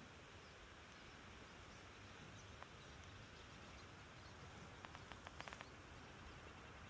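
Near silence: faint outdoor background, with one faint click and then a quick run of faint ticks about three quarters of the way through.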